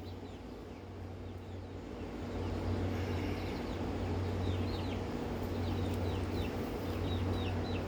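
Young birds peeping: many short, falling chirps in quick clusters, over a steady low hum.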